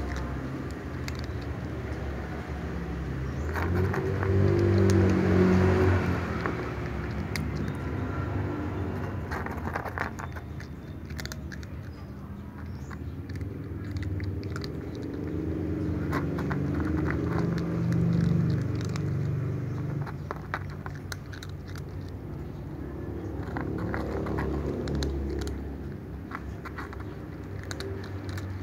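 Ginger tabby cat crunching dry kibble, a scatter of small crunches and clicks. A low rumble swells and fades three times underneath.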